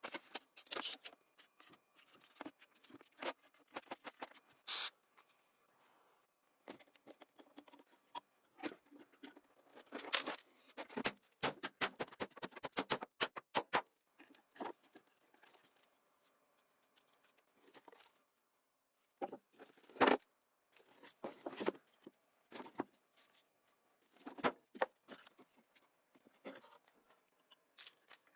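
Irregular clicks, taps and scrapes of hand work on a small object, with a quick run of clicks in the middle and short quiet gaps between.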